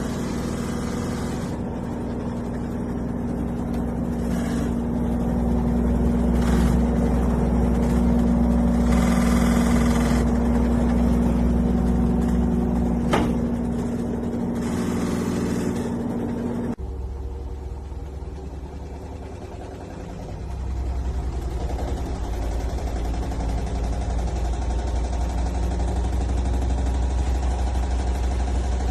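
Front-loading washing machine running, its motor and drum giving a steady low hum. The hum changes abruptly about 17 s in, dips, then a low rumble builds up again about 20 s in.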